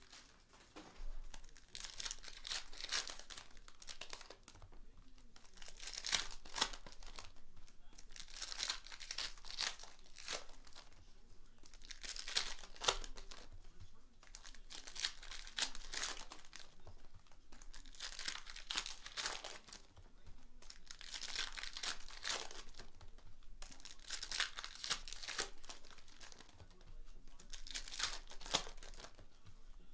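Panini Prizm basketball retail card packs being torn open one after another, their foil wrappers ripping and crinkling in rough bursts every two to three seconds.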